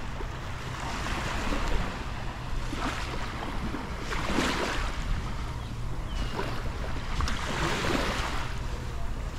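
Waves washing onto the beach in repeated swells, over a steady low rumble of wind on the microphone.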